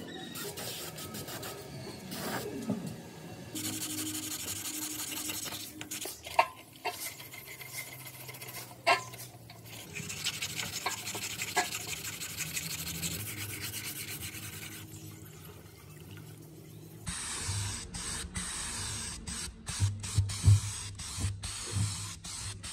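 Sandpaper rubbed by hand over the painted steel fuel tank of a Minsk 125 motorcycle: a steady, scratchy rubbing, with a couple of sharp knocks.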